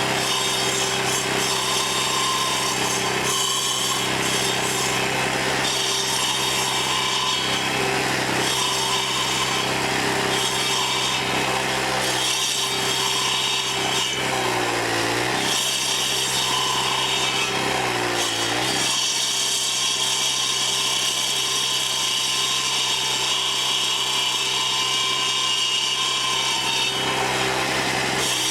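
Troy-Bilt sidewalk edger's small engine running with carbide-tipped saw blades grinding into a cedar stump. The engine note sags and recovers a few times around the middle as the blades bite in.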